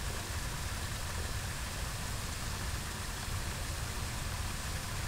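Steady rushing of water through a spillway, with gusty wind rumbling unevenly on the microphone underneath.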